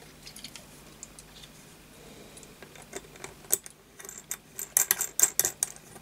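Light clicks and small metallic clinks from a hand handling a small model engine's metal parts: a few scattered ticks at first, then a quick irregular flurry of sharper clicks in the last two and a half seconds.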